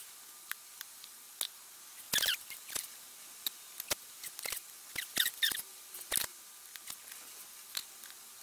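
Irregular small clicks and taps of thin laser-cut 3 mm MDF pieces being handled and pressed into place on a wooden model, with a few short clusters of clicking and scraping about two, five and six seconds in.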